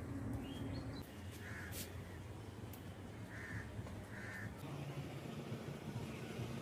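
A crow cawing three short times, the second and third close together, over a steady low background hum.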